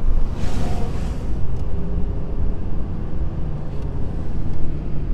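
Steady road and engine rumble inside a Chevrolet pickup's cab at road speed, with a brief rush of hiss about half a second in.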